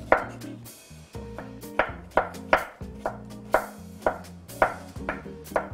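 Santoku-style kitchen knife chopping shallot on a wooden cutting board: a quick run of sharp knocks, about two a second, as the blade hits the board.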